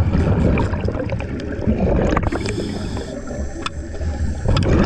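Water gurgling and sloshing over a low rumble, with scattered small clicks and crackles.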